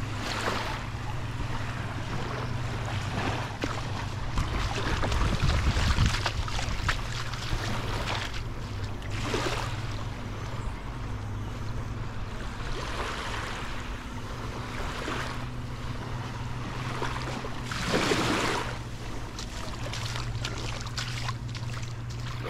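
Small waves washing onto a sandy beach, swelling and fading every few seconds, with wind buffeting the microphone and a steady low hum underneath.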